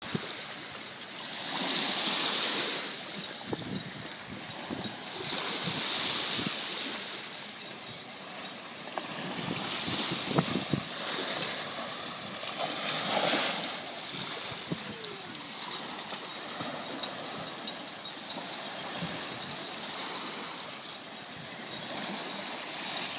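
Choppy sea washing against the shore, swelling and fading every few seconds, with wind buffeting the microphone. About halfway through, a brighter rush of spray hiss as a kiteboard carves past close by.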